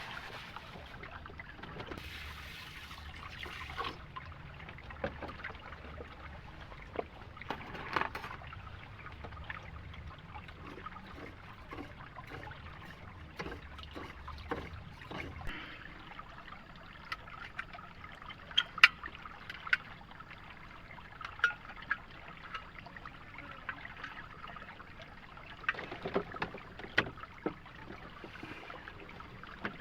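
Water trickling and running steadily, with scattered sharp clicks and knocks throughout, a few louder ones in the second half.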